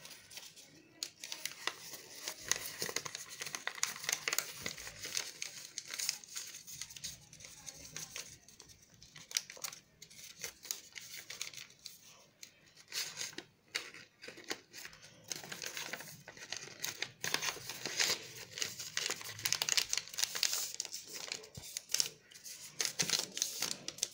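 Ruled notebook paper rustling and crinkling as it is folded and creased by hand into a paper boat, with irregular crackles as the folds are pressed and pulled.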